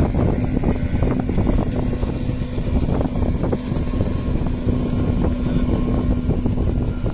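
Wind buffeting the microphone, over a steady low engine hum.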